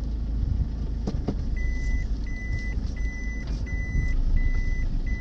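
Low road and engine rumble heard inside a moving car. About a second and a half in, a steady electronic beep starts and repeats a little more than once a second, like a warning or reversing alarm.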